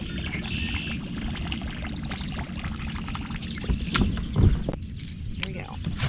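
Water lapping and splashing against a kayak over a steady low rumble, with a few knocks about four seconds in.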